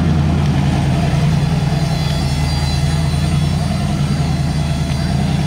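Fox-body Mustang drag car's engine running steadily at low revs as the car rolls slowly along, a loud, unchanging low-pitched engine note.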